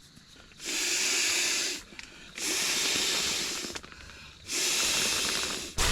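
Air rushing through the valve of an inflatable camping mattress as it is pumped up, in three long hissing bursts with short pauses between them.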